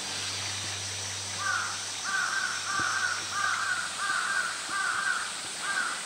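A bird calling in a steady series of about eight short, evenly repeated calls, starting about a second and a half in and coming a little under a second apart.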